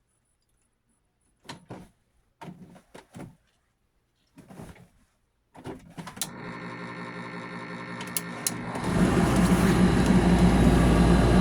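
A few knocks and clicks, then the Bosch electric dryer's motor starts about five and a half seconds in and runs with a steady hum, growing louder about nine seconds in. The drive belt is broken, so the motor spins freely without turning the drum.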